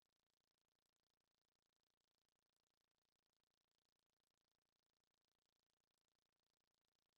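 Near silence: only a very faint, even hiss.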